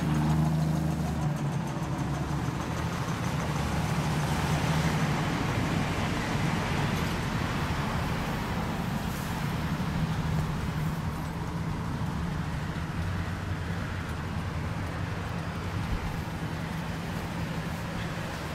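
Road traffic noise: a steady rush of passing vehicles that swells and then slowly eases off.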